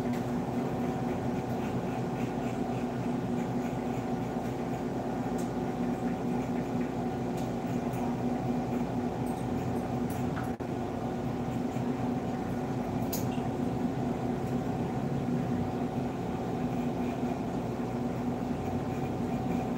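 Steady electric motor hum with several constant pitches, unchanging throughout, with a few faint ticks over it.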